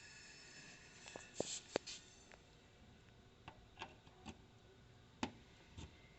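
A faint steady hum fades out in the first two seconds. It is followed by about nine irregularly spaced sharp clicks and light knocks, the loudest near the two-second mark.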